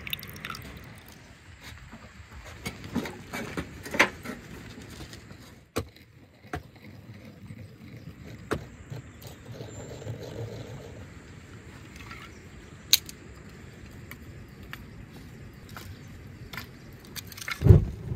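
Scattered clinks, clicks and scrapes of hands and a spoon working in clay bowls of marinade and spice paste, with a heavy thump near the end.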